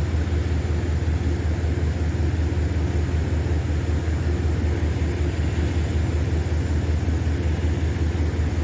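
Diesel locomotive of a Metro-North train standing at the station, its engine giving a steady low rumble.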